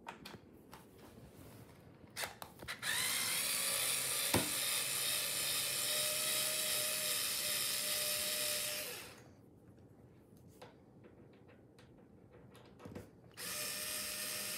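Black+Decker cordless screwdriver backing out long Phillips screws from an amplifier cabinet. Its motor whines up to speed about three seconds in and runs steadily for about six seconds, then stops. Light handling clicks follow, and the motor starts again near the end.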